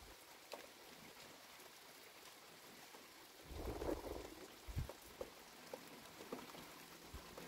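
Light rain falling steadily, with scattered drop clicks. About three and a half seconds in, a low rumble swells for about a second, followed by a short low thump.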